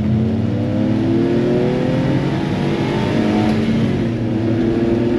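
Kei truck's small engine accelerating, heard inside the cab: the pitch climbs, drops for a gear change about three and a half seconds in, then climbs again.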